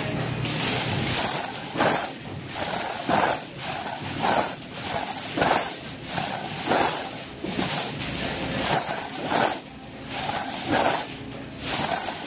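Heavy steel chains hanging from a dip belt jingling and clanking with each rep of weighted chin-ups, a surge of rattling about once a second.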